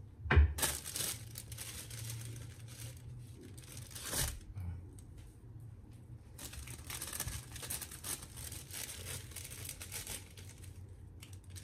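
Thin plastic bag crinkling and rustling as a bunch of fresh dill is pulled out of it, with a knock just after the start and another about four seconds in.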